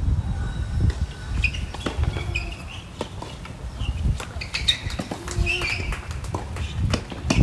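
Tennis rally on a hard court: sharp pops of racket strikes and ball bounces at irregular intervals, with short high squeaks between them.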